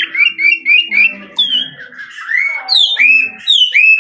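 Chinese blackbird singing: a quick run of about five short rising whistles, then slower, longer whistled notes that slide upward.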